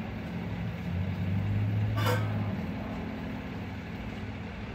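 A vehicle engine running at idle, a steady low hum that grows louder for a moment in the middle, with one sharp click about two seconds in.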